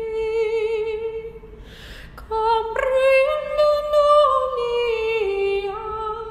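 A woman's voice singing slow, long held notes without accompaniment, with a slight waver, pausing for a breath about two seconds in before a louder, higher phrase.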